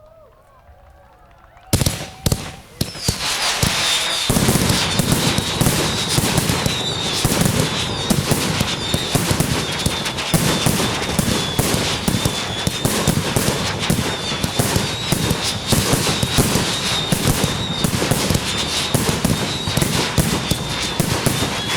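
Fireworks barrage: sharp reports start suddenly about two seconds in and build into a continuous dense stream of rapid bangs and crackling, with a high wavering whistle running through it.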